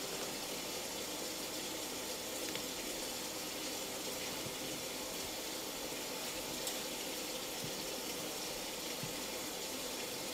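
Steady sound of falling rain, an even hiss that holds at the same level throughout.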